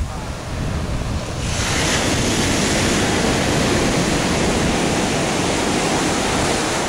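Surf breaking and washing up the beach: a broad hiss that swells about a second and a half in and holds, over low wind buffeting on the microphone.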